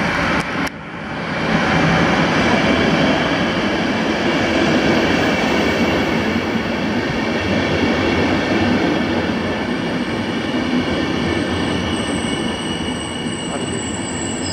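Coaches of a long Vectron-hauled passenger train rolling past the platform, a steady noise of wheels on the rails. A faint high squeal comes in near the end.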